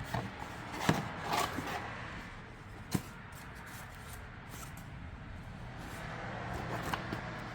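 Items being handled during an unboxing: rubbing with a few light knocks, the sharpest about three seconds in, over a low steady hum.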